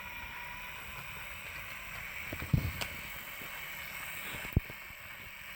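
Plastic toy race-track playset being handled: two dull knocks a couple of seconds apart with a faint click between them, over a steady low hiss.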